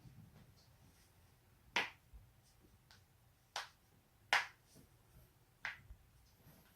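Human joints cracking: four sharp, separate pops spread over a few seconds, the third the loudest.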